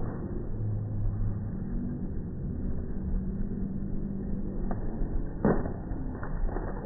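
Racehorses galloping past on turf, heard in slowed-down slow-motion audio: a deep, drawn-out rumble of hoofbeats, with one sharp strike about five and a half seconds in.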